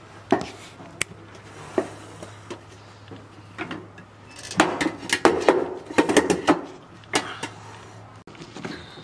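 Stainless steel pot holding cut pineapple chunks being handled, with scattered knocks and clinks of fruit and metal, then a busier run of clatter in the middle. A low steady hum underneath stops shortly before the end.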